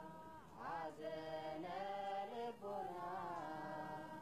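Ethiopian Orthodox liturgical chanting, fairly faint: voices holding long, drawn-out notes that slide slowly up and down.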